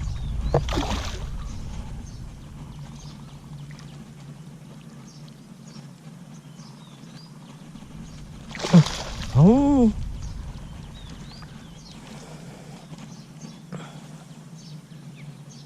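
Water splashing as a hooked Nile tilapia thrashes at the pond surface during the fight, with one sudden splash about half a second in and a louder one about nine seconds in.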